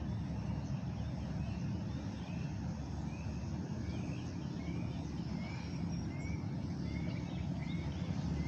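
Outdoor lakeside ambience: a steady low rumble, with a run of short high chirps about twice a second from a few seconds in.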